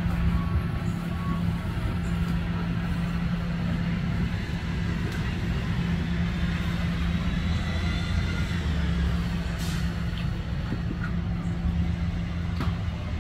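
A truck engine idling steadily, a constant low hum with rumble beneath it, over general street noise. There are two short knocks in the latter half.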